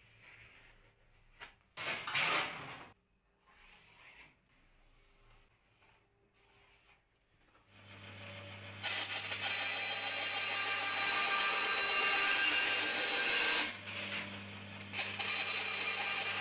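Vertical bandsaw running and cutting a thin metal sheet, with a steady motor hum under a loud hissing, ringing buzz from blade and sheet. It starts about eight seconds in and dips briefly near the end. Before it there are only a few light clatters of hand tools on the sheet.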